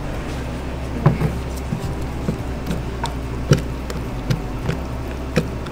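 Scattered clicks and knocks of a plastic tub of chocolate spread being set down and handled, the loudest about three and a half seconds in, over a steady low hum.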